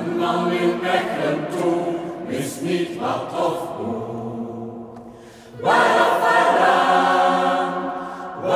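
Mixed choir singing a cappella in sustained, chord-like phrases. The sound eases off towards the middle, then the full choir comes in louder about two-thirds of the way in.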